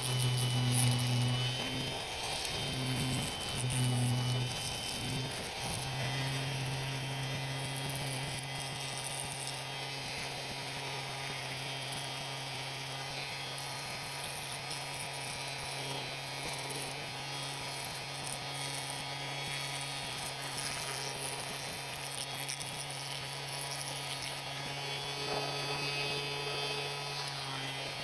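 Electric power tool running with a steady motor hum, which cuts in and out several times in the first few seconds and then runs on without a break.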